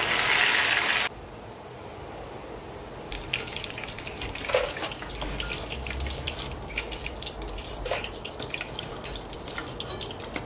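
Potato strips deep-frying in hot oil in an aluminium wok: a loud bubbling hiss that cuts off sharply about a second in, then quieter sizzling with fine crackles as the fried potato is lifted out with a wire strainer, and a couple of knocks of the strainer against the wok.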